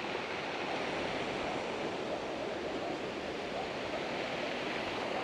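Steady rushing noise of sea surf washing along the shore.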